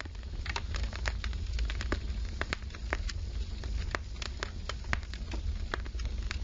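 Fire crackling: irregular sharp pops and snaps, several a second, over a low steady rumble.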